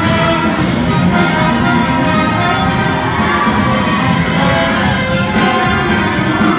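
Show choir's live band playing an up-tempo dance number, loud and steady.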